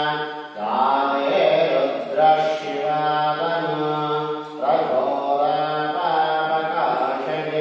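Mantra chanting for a Shiva abhishekam: long held notes that step in pitch, with short breaks for breath every two to three seconds.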